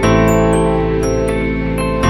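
Background music: held chords that change about every two seconds, with light tinkling bell-like notes over them.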